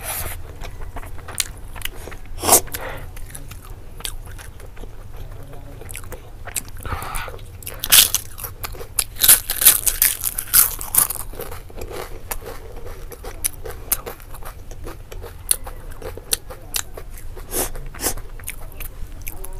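Close-miked chewing and mouth sounds of a person eating by hand: a run of short wet clicks and bites, with a denser, louder cluster of clicks around the middle.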